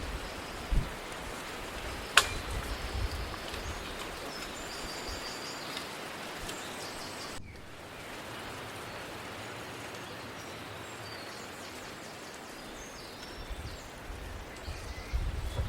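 Outdoor mountain ambience: a steady hiss with faint high chirps, and low wind rumble on the microphone near the start and end. A single sharp click comes about two seconds in, and the sound breaks off abruptly about seven seconds in.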